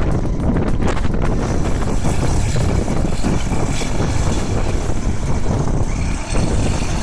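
A heavy machine's engine running steadily, with wind buffeting the microphone.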